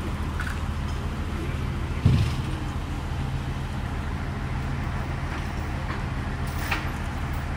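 Steady low drone of a large vehicle's engine idling. A single loud thump about two seconds in.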